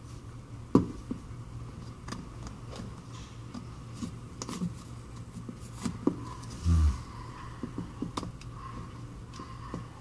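Scattered light clicks and taps of small tools and plastic parts while an iPhone 5c's display is worked open, with one dull thump about two-thirds of the way through, over a steady low hum.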